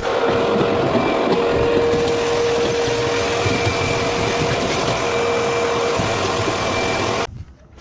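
Vacuum cleaner running steadily with a held whine, cleaning dust and dirt out of a dryer cabinet, switched off abruptly near the end, leaving a few light clicks.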